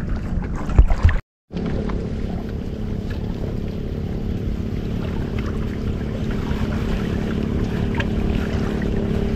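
Steady low rumble of wind on the microphone at the seashore, with a faint steady hum underneath. The sound cuts out completely for a moment about a second in.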